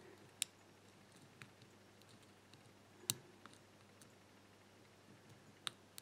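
Sparrows hybrid pick and tensioner working the pin tumblers of a small aluminium Burg Wächter padlock: faint, scattered sharp clicks, four of them louder than the rest, as the pins are lifted in single-pin picking.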